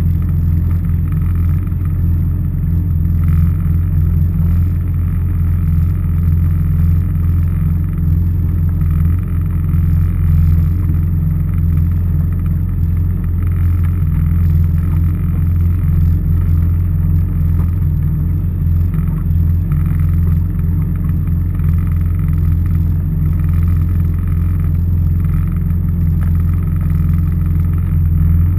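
Personal watercraft engine running at a steady cruising speed, a deep, even drone.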